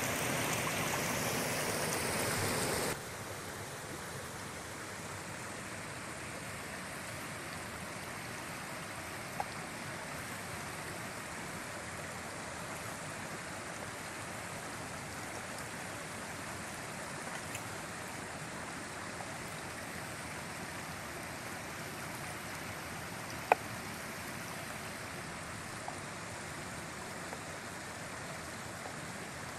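Potato pancakes sizzling in hot oil in a cast-iron pan for about the first three seconds, then a sudden switch to the steady rush of a forest stream. A few sharp taps of a knife on a wooden cutting board sound as porcini mushrooms are sliced, the loudest about two-thirds of the way through.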